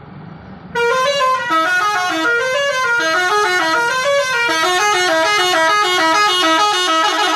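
Bus telolet horn, an Alzifa V3 set, playing its melody. It starts about a second in: several horn tones sound together and step up and down in short notes, several a second, without a break.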